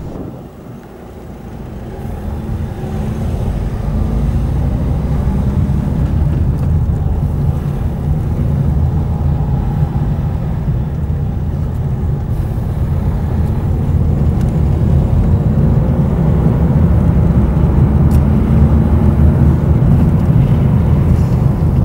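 Car driving along a road: a steady rumble of engine and tyre noise that builds over the first few seconds as it picks up speed, then holds.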